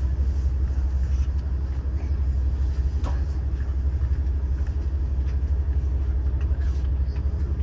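Steady low rumble inside the passenger car of the Yufuin no Mori diesel express while it stands halted, its underfloor diesel engines idling, with a few faint small clicks.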